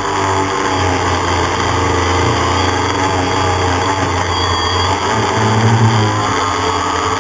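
DJI Phantom quadcopter's brushless motors and propellers buzzing steadily in flight, heard from the camera mounted on the drone. The pitch wavers slightly as the motors adjust, and the sound swells briefly about six seconds in.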